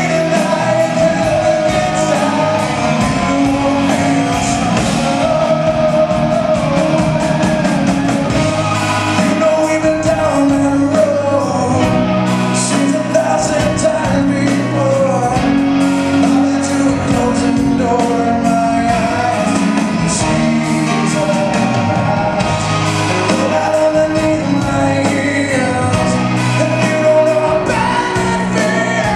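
Live rock band playing a song with a male lead vocal, electric guitars, keyboards and drums, heard in a large hall.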